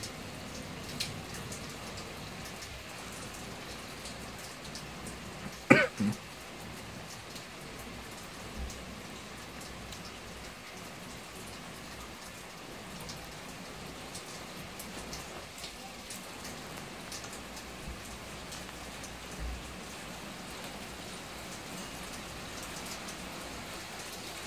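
Steady rain falling, with scattered drops ticking close by. About six seconds in, a brief loud sound sweeps quickly down in pitch, followed at once by a second, shorter one.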